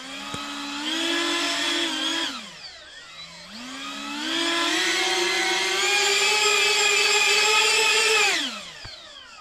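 Wingtip ducted fans on a Triebflügel rotor-wing model whining as they are throttled up. A short run-up falls away about two seconds in, then a second, longer run creeps slowly up in pitch before it cuts off near the end and winds down with a falling whine.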